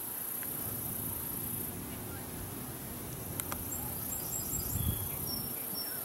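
Outdoor insect ambience: a steady, very high-pitched insect trill, with a handful of short, high chirps in the middle.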